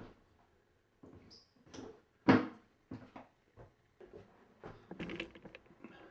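Household knocks and bumps: a brief high squeak about a second in, one loud thump a little over two seconds in, then scattered small knocks.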